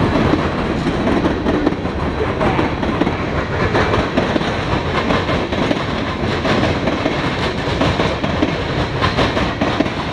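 Freight train tank cars rolling past close by: steel wheels clattering over the rail joints in a steady, loud clickety-clack and rumble.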